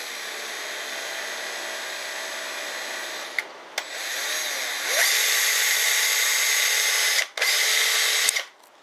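Black & Decker 20V Max cordless drill motor spinning a bit with no load, its speed set by the variable-speed trigger: a steady whine that drops out briefly a little before halfway, then rises in pitch to a higher, louder speed. It cuts out for a moment, runs again, and stops near the end.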